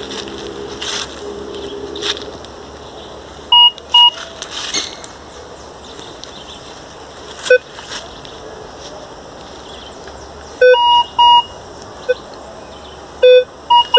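Minelab Vanquish 440 metal detector giving short electronic target beeps as its coil is swept over the ground. The beeps come singly and in quick pairs with pauses between them, some low and some high in pitch.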